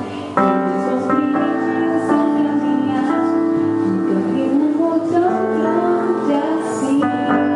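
Slow background music with long held chords; the chord changes shortly after the start and again near the end.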